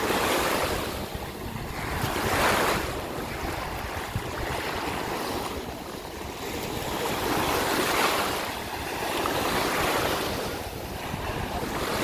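Small sea waves breaking and washing up a sandy shore. The hiss of the surf swells and fades every two to three seconds, over a low rumble of wind on the microphone.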